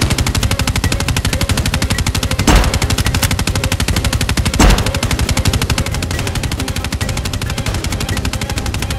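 Automatic gunfire sound effect: a fast, even rattle of shots, with two heavier booms about two and a half and four and a half seconds in.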